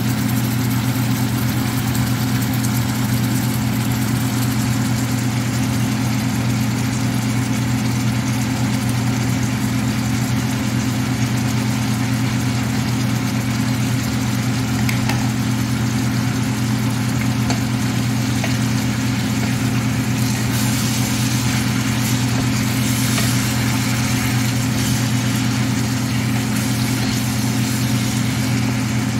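Steady low electric hum, with a faint hiss from chicken livers simmering in a stainless steel frying pan; the hiss grows louder for a few seconds about two-thirds of the way in.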